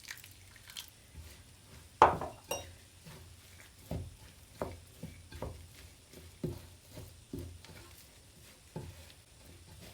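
A utensil knocking and scraping against a mixing bowl while stirring a thick, sticky date and nut mixture, with about ten short knocks at irregular intervals; the loudest comes about two seconds in.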